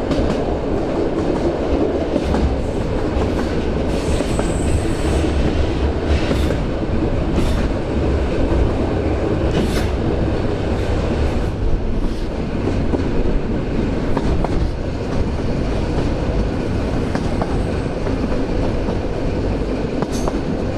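EN57 electric multiple unit running along the track: a steady rumble of wheels on rail with scattered clicks over the rail joints, and a brief high wheel squeal about four seconds in.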